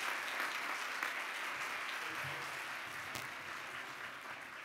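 Audience applauding, the clapping easing off slightly toward the end.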